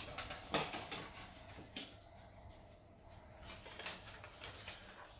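Faint handling noises at a desk: a few light clicks and rustles, the sharpest one right at the start.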